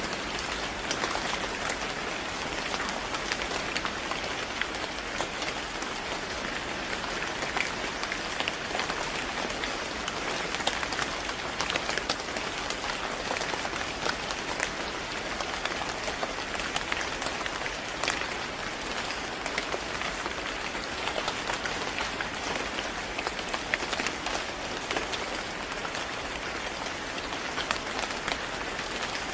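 Steady rain falling on a surface, an even hiss with many small drop ticks scattered through it and no change throughout.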